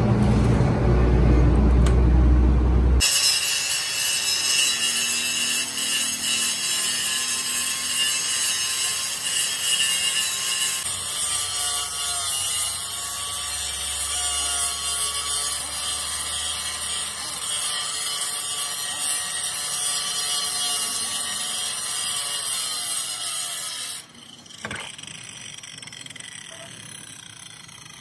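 Electric angle grinder grinding down the weld on a steel rear axle housing: a dense, high-pitched grinding that wavers as the disc bites. A heavy low rumble fills the first few seconds, and about 24 seconds in the grinder is switched off and winds down with a falling whine.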